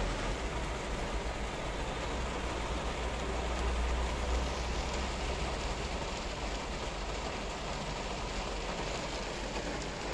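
Heavy rain drumming on a car's roof and windscreen, heard from inside the cabin as a steady hiss, over a low rumble of engine and traffic that eases off about halfway through.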